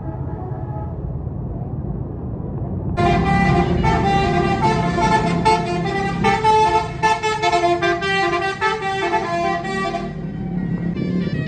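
A bus's basuri telolet horn playing a melody of quickly changing notes, starting about three seconds in and stopping near the end, over the low running of the bus engine.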